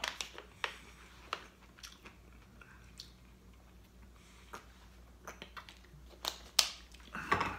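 Thin plastic water bottle opened, drunk from and handled again: scattered crinkles and clicks of the plastic, loudest a little before the end.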